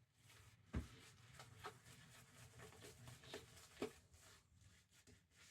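Faint scratchy brushing of a shaving brush working Mitchell's Wool Fat shaving soap into lather, with a few sharper clicks.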